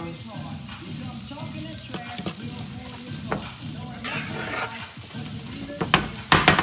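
Corn, tomato and spinach sizzling in a skillet while being stirred with a metal spoon, the spoon clinking on the pan now and then. Near the end comes a quick run of sharp taps of the spoon against the pan.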